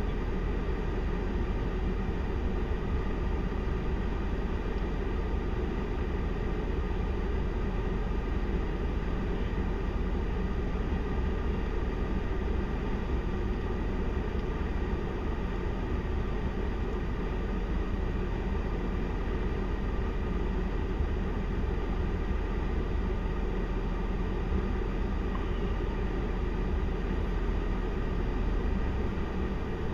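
Steady engine drone and tyre rumble of vehicles rolling slowly in a heavy-haul truck convoy, unchanging throughout.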